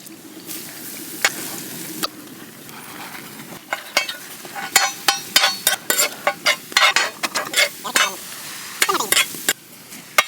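Hakka noodles stir-frying in a hot pan. A sizzle comes first; from about four seconds in it turns into a run of quick, sharp clacks and scrapes of a spatula against the pan, which stops about a second before the end.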